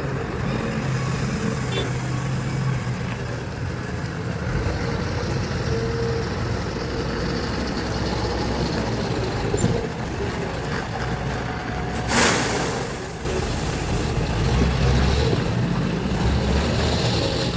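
JCB backhoe loader's diesel engine running and revving under load, with a brief loud rushing noise about twelve seconds in.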